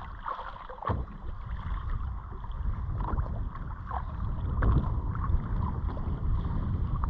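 Water lapping against a fishing kayak's hull with wind buffeting the microphone, a steady low rumble that grows a little louder in the second half, with a few light knocks.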